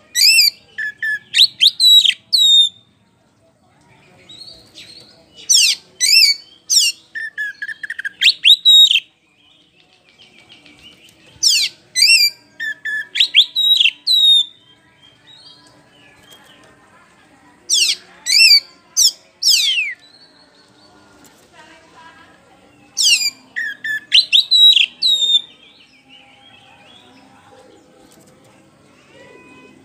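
Oriental magpie-robin singing: loud bursts of rapid, sweeping whistled phrases, about five of them, each two to three seconds long with short pauses between, the song stopping a few seconds before the end.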